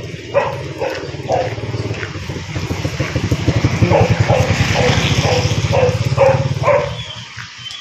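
A small motor scooter's engine approaches and passes close by, getting louder to a peak about four to six seconds in and then fading. A dog barks repeatedly over it.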